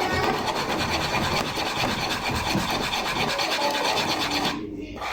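Pancake batter being stirred fast by hand in a mixing bowl, the utensil scraping steadily around the bowl. The scraping stops about four and a half seconds in.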